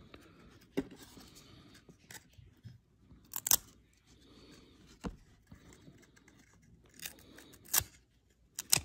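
Baseball cards being flipped through by hand, with a clear plastic card holder among them: short sharp flicks and snaps of card edges and plastic about once a second. The loudest come about three and a half seconds in and just before the end.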